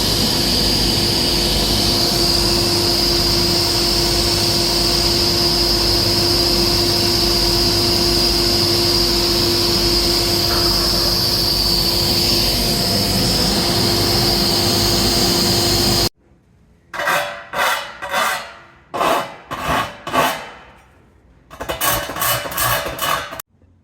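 A power tool runs steadily with a high whine over a lower hum, then cuts off abruptly about two-thirds of the way through. A run of short rasping strokes follows in two groups.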